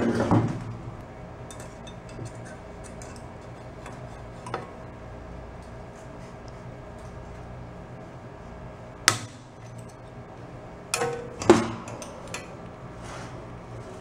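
Metal clinks and knocks from handling a floor fan's sheet-metal blade and chrome wire guard as the blade is worked off the motor shaft. A few light clicks, then a sharp knock about nine seconds in and a cluster of louder clanks a couple of seconds later.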